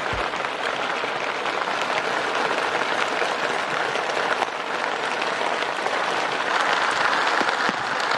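Heavy rain falling steadily on a sailboat's deck, its rails and the harbour water, a dense even hiss of many drops.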